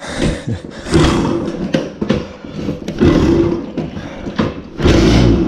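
Minarelli 50cc two-stroke moped engine being kick-started, turning over and firing briefly in three surges about two seconds apart without staying running.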